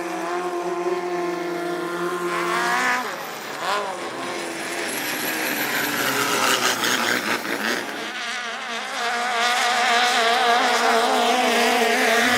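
Thai longtail racing boat engines running hard at high revs. The pitch shifts a few times, with a rising sweep in the middle and a wavering steady note in the last few seconds.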